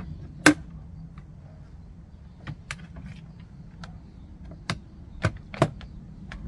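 Short sharp knocks and clicks, about eight at irregular intervals, the loudest just after the start, over a low steady hum.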